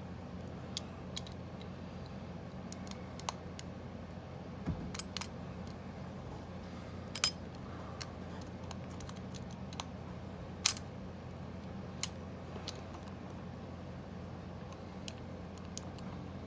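Scattered small metallic clicks and ticks of a hook pick and tension wrench working the keyway of a Bunker Hill circular padlock, which has spool pins and strong core spring tension. Two sharper clicks stand out, about seven and eleven seconds in, over a steady low hum.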